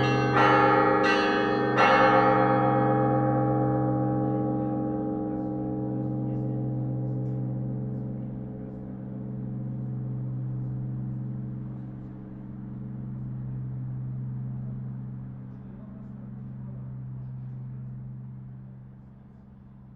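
Russian Orthodox church bells of cast bronze ending a peal: three quick strokes in the first two seconds, then the bells ringing down and fading, the deep hum of the largest bell lingering longest with a slow waver.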